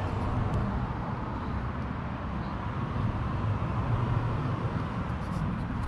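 Steady low rumble of outdoor background noise, with a few faint clicks near the end.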